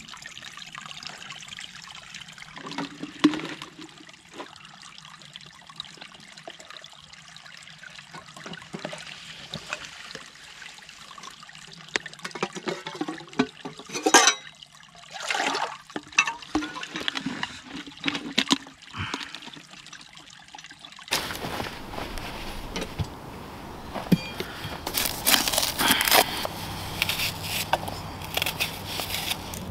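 Shallow stream trickling, with splashing and pouring as water is scooped with a plastic bottle and tipped into a metal camping kettle; the loudest splash comes about halfway through. About twenty seconds in, it cuts to a different, fuller background with bursts of rustling and handling noise.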